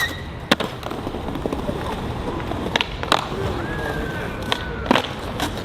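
Skateboards at a street spot: wheels rolling on pavement with four sharp clacks of boards striking the ground or ledge, two of them close together in the middle.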